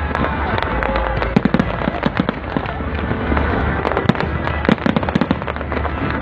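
Large fireworks display bursting: a dense, unbroken run of overlapping bangs and crackles from many shells at once.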